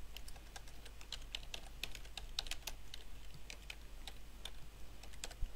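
Typing on a computer keyboard: short, uneven key clicks, about four a second, over a faint steady low hum.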